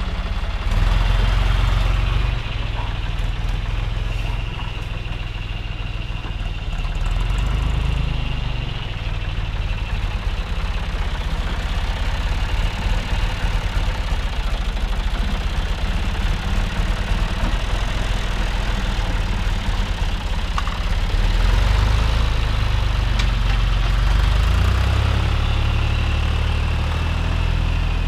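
Diesel tractor engine running under load while pulling a plough; its low drone swells louder a few times as the load changes.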